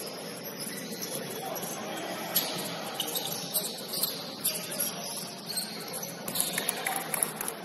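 Basketball game play on a gym court: scattered sharp knocks from the ball and players' shoes on the floor over a steady hiss, busiest near the end.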